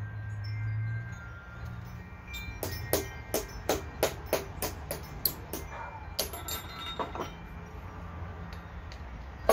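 Quick light hammer taps on a chisel set against a seal, driving it down into the Cummins 6BT. About ten ringing metal strikes come roughly three a second, then a few slower taps.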